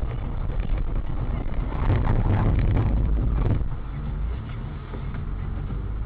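Car driving, heard from inside the cabin through a dashcam microphone: a steady low rumble of engine and road noise, louder for a couple of seconds in the middle.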